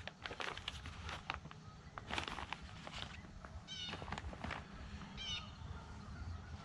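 A few short, meow-like animal calls, each a quick warbling call, with faint scattered knocks and clicks of things being handled.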